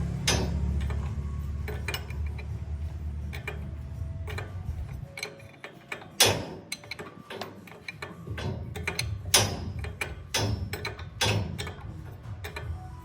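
Irregular sharp metallic clicks and knocks, as of tools working on metal, over a low rumble that fades out about five seconds in.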